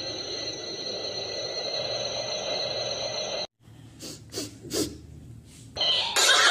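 A steady hum with a high whine, then, after a brief cut, a cat sniffing with four or five short sharp puffs of breath.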